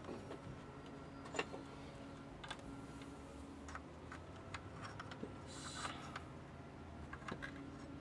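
Scattered light metal clicks and taps from a tool being fitted and worked on the top of a GM steering column, the sharpest click about a second and a half in, with a brief scraping rustle just before the six-second mark.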